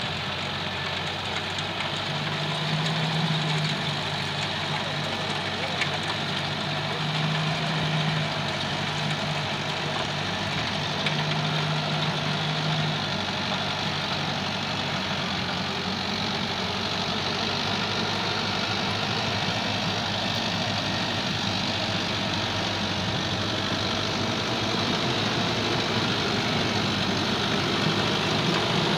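Mahindra Arjun Novo 755 DI 4WD tractor's diesel engine running steadily under load while pulling a rotavator through the soil, growing a little louder near the end as the tractor comes closer.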